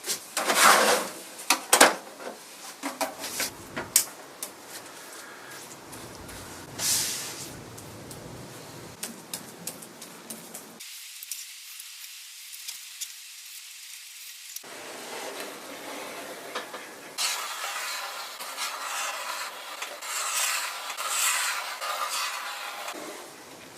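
Hand scraping and rubbing on a wooden furniture surface as the softened old finish is stripped off: irregular scrapes and clicks, then a steadier rubbing hiss, in several short edited stretches that change abruptly.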